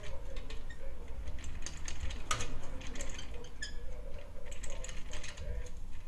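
Irregular light clicks and metallic taps as hands work the chrome muffler and its mounting hardware on a motorcycle's exhaust, with a couple of sharper clicks a little past halfway.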